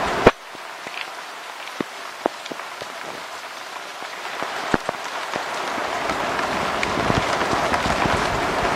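Rain falling during a thunderstorm, with separate drops ticking close by. A sharp click comes just after the start and the rain hiss drops right after it, then slowly grows louder again through the rest.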